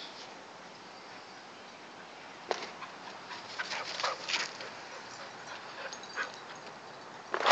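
Young puppy whimpering and yipping in short bursts, clustered in the middle, with a louder noise at the very end.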